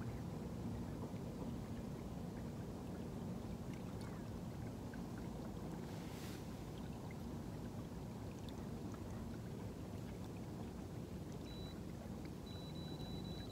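A small fishing boat under way on an electric trolling motor: a steady rush and lapping of water along the hull with a faint steady hum. A thin high beep sounds briefly near the end.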